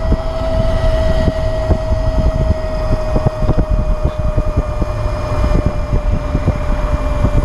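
Electric scooter motor whining with a steady high tone that sinks slightly as the speed eases from about 20 to 18 mph, over a low rumble of tyres on the road and wind on the microphone.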